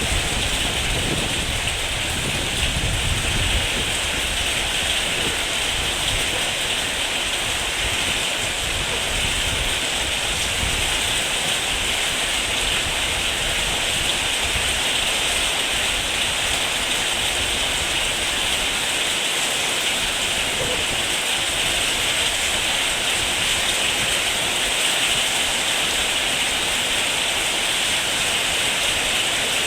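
Heavy rain falling steadily, a dense even hiss. A low rumble fades out in the first few seconds.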